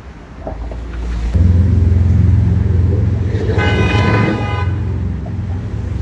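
A deep, steady vehicle rumble sets in about a second in, and a horn sounds once for about a second near the middle.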